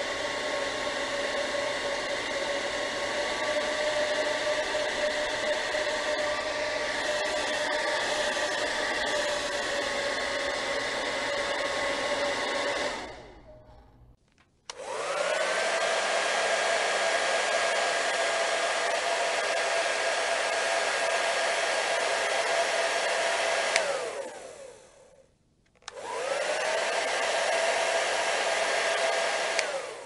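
A Parlux 3500 hair dryer blowing steadily, a rush of air with a steady tone in it, fading out about 13 seconds in. Then another hair dryer is switched on, its pitch rising as the motor spins up. It runs for about nine seconds, is switched off with a falling pitch as it winds down, then is switched on again and winds down once more near the end.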